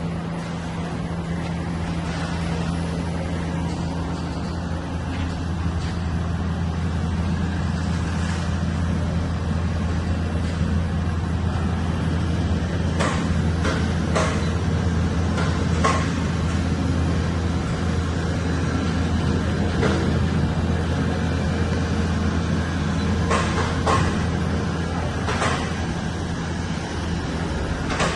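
Steady low machinery hum with a hiss over it, broken by a few sharp clicks about halfway through and again later.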